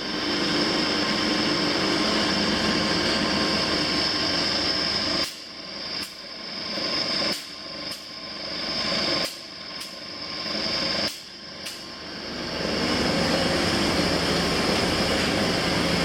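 Workshop machinery running steadily with a high whine. Several times in the middle it cuts out briefly in quick pairs and then comes back up.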